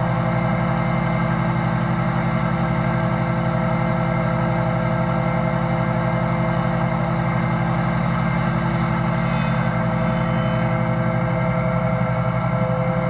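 Restored 1940s Delta shaper running with a power feeder driving boards past the cutter: a loud, steady machine hum with no breaks.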